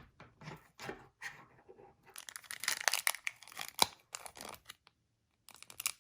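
Foil Pokémon card booster packs crinkling and tearing in the hands: a quick, irregular run of crackles, busiest in the middle, with a short pause near the end.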